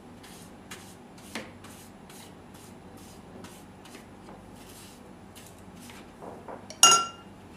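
Pastry brush stroking oil over greaseproof paper on a plate: soft, even brushing at about three strokes a second. Near the end, a short ringing clink as the brush goes into a glass tumbler.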